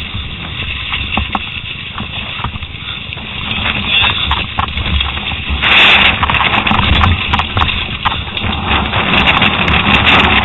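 Wind buffeting the microphone and tyres rolling and skidding over loose dirt and rock as a downhill mountain bike descends, with scattered rattles and clicks from the bike. The noise gets louder a bit over halfway through.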